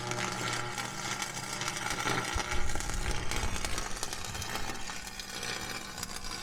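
John Deere 9550 combine running while harvesting soybeans, heard from inside the cab as a steady mechanical drone.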